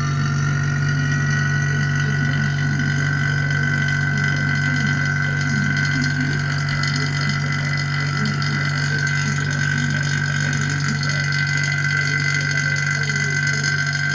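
An electric motor-driven machine running steadily, with a low hum and a high whine that rises slightly in pitch over the first couple of seconds as it comes up to speed.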